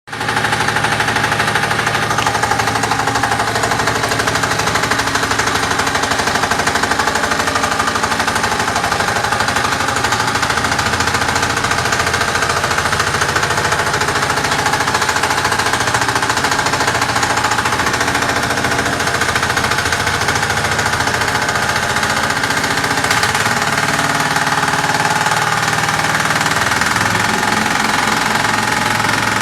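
Walk-behind single-drum vibratory road roller running: its single-cylinder engine going steadily with a rapid, rattling chatter throughout.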